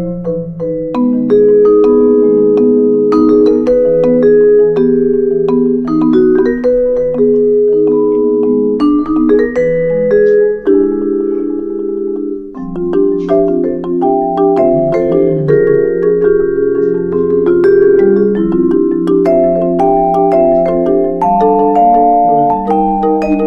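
Instrumental background music: ringing, sustained chords that change every second or two.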